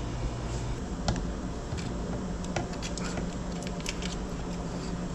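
Scattered light clicks and scrapes of gloved hand work with a small tool at a dirt bike's front axle and fork bottom, greasing the axle ends, over a steady low hum.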